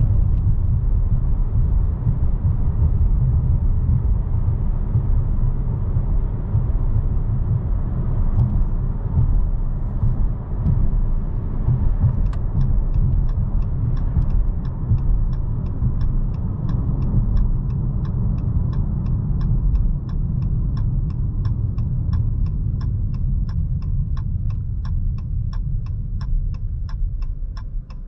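Low rumble of a Dodge Charger GT's 3.6-litre V6 and road noise inside the cabin on the move. About twelve seconds in, a steady, evenly paced ticking starts, typical of the turn-signal indicator, and the rumble eases a little near the end.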